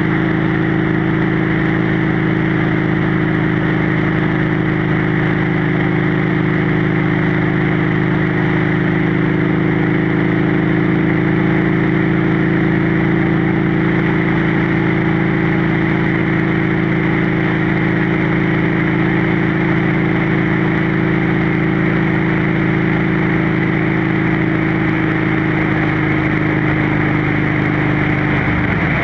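Motorcycle engine and exhaust running at a steady cruise, with wind rushing past the rider. The engine note shifts just at the end.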